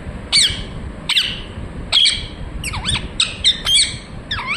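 Ringneck parakeet giving a string of short, shrill squawks, each dropping sharply in pitch. There are about nine calls, and they come closer together after about two seconds.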